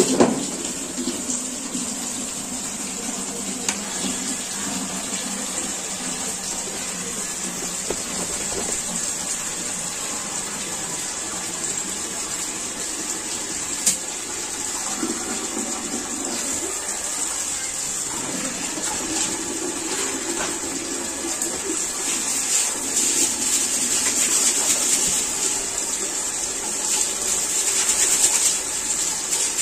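Water running steadily from a tap, starting abruptly, with rougher splashing near the end.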